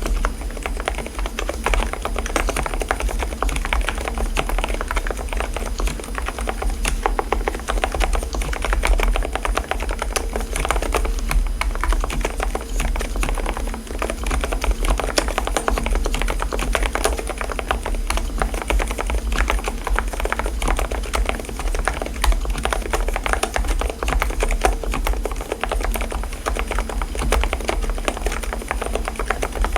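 Mstone mechanical keyboard with silent (low-noise) switches being typed on steadily, a dense run of soft keystroke clacks with no pauses.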